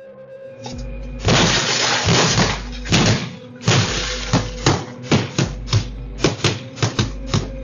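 Axes smashing a car: glass shattering in two long crashes, then a run of hard separate blows about three a second. Heard through a doorbell camera's microphone.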